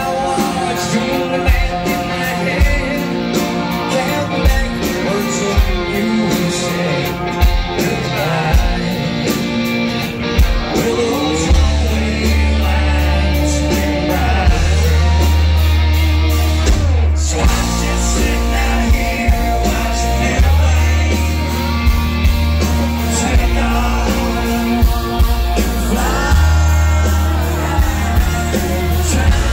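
Live country band playing with a male lead singer: singing over a steady drum beat and guitars, with heavy bass coming in about twelve seconds in.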